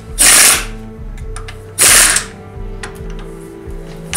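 Pneumatic impact wrench hammering the wheel bolts tight on the freshly refitted front wheel. It runs in short bursts of about half a second: twice, with a third starting at the very end, and quieter clatter between the bursts.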